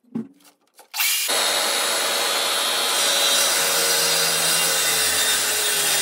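Mafell MT 55 plunge-cut track saw: a few light knocks, then about a second in the motor starts abruptly and runs loud and steady as the blade cuts through a thick wooden board along its guide rail, its whine dropping slightly in pitch under the load.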